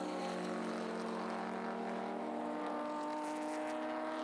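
BMW race cars' engines running at steady revs, a level engine drone that hardly changes pitch.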